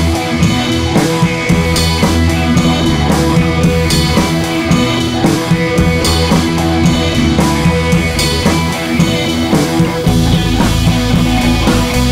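Background music with a steady beat; the bass grows fuller about ten seconds in.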